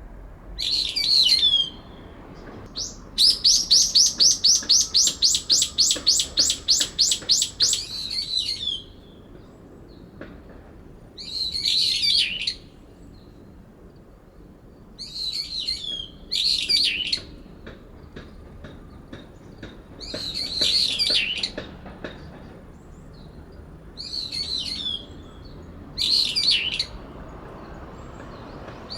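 Brown-eared bulbuls giving shrill calls in short bouts every few seconds, with a long run of about twenty rapid repeated notes, roughly four a second, from about three to eight seconds in. These are territorial calls between two bulbuls, the resident bird calling to drown out an intruder.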